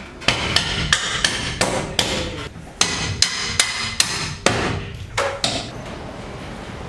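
Mallet striking 75 mm fixings to drive them through the tab fixing holes of a roof sheet on a steel shelter frame. About a dozen sharp knocks come at roughly three a second and stop about five and a half seconds in.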